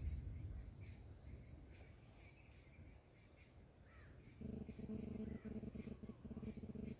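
Faint, steady high-pitched insect trill with brief breaks, heard in forest undergrowth. A low rumble fades away in the first second, and a low pulsing buzz joins in about four and a half seconds in.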